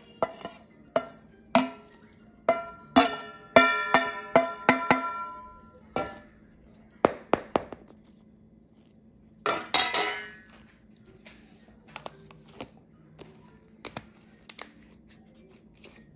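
A steel spoon clinking and tapping against dishes: a quick run of ringing clinks, then a louder scraping rattle about ten seconds in, and a few light taps after it.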